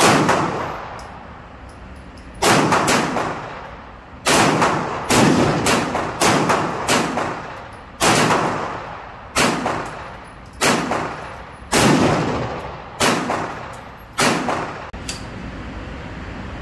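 AR-15 rifle fired in single shots, about fifteen in all at an uneven pace, often about a second apart. Each shot rings on in the echo of an indoor range.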